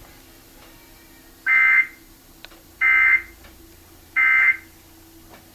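Emergency Alert System end-of-message (EOM) code: three short, equal bursts of digital data tones about 1.3 seconds apart, marking the end of the broadcast alert test.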